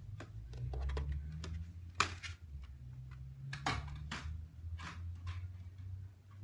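Mother cat purring, a low steady hum that swells and eases with her breathing as her kittens nurse, with scattered soft clicks and taps over it.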